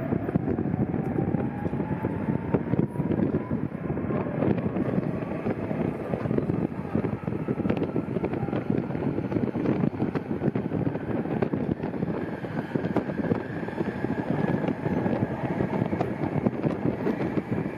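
A moving tram, heard from inside: a steady rumble of wheels on track, with a faint whine that rises slowly in pitch over the first few seconds and again from about twelve seconds in, as the tram speeds up.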